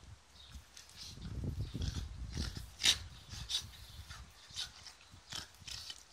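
Two Jack Russell terriers play-fighting: low rumbling growls for a couple of seconds, then several short, sharp noises from the dogs.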